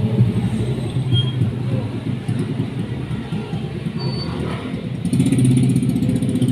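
An engine running steadily with a low pulsing note; it eases a little in the middle and grows louder about five seconds in.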